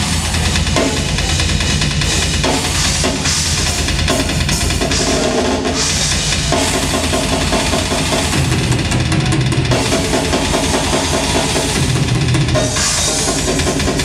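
Live rock band playing through a stage PA: fast drum kit with bass drum and snare under sustained electric guitar and bass riffs that change every few seconds.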